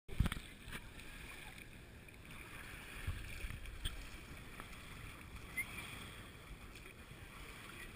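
Faint, steady outdoor ambience of wind and water, with a few low knocks from a handheld action camera being moved.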